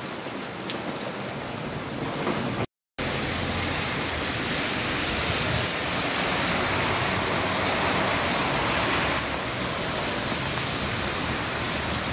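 Steady rain falling on wet pavement, with the sound cutting out briefly about three seconds in.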